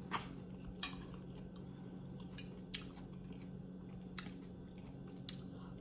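Close-up chewing of oxtail: sharp, wet mouth clicks and smacks about half a dozen times, spread unevenly, over a steady low hum.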